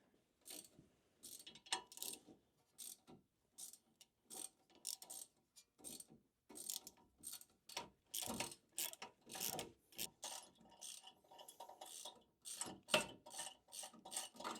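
Ratchet wrench clicking in short, uneven runs as the bottom shock-mount bolts of a truck's front suspension are loosened.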